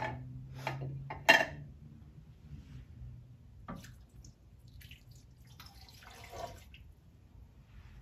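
Broth and water poured into an Instant Pot's inner pot, heard as a short splashing pour about six seconds in. Before it come a few sharp clinks and knocks of cans and a measuring cup handled at the pot, the loudest a little over a second in.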